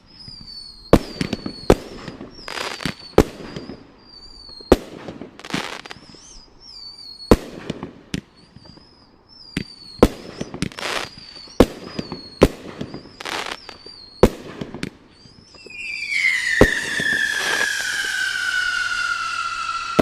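A 10-shot consumer aerial firework cake firing: a string of sharp shots and bursts about a second apart, with a thin high wavering whistle between them. About fifteen seconds in, the finale girandola goes up with a loud whistle that slowly falls in pitch over about four seconds.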